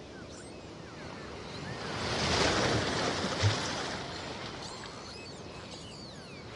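A rush of noise that swells to a peak about two and a half seconds in and then fades, with a short low thump near its peak. Faint high chirps sound before and after it.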